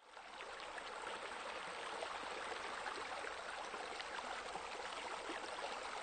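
Water splashing and trickling steadily, like water features spilling into a pool; it fades in over the first second.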